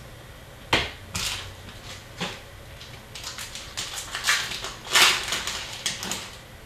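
Wrapper of a hockey card pack crinkling and tearing as it is ripped open by hand, a run of uneven rustles and crackles loudest about five seconds in, after a sharp tap near the start.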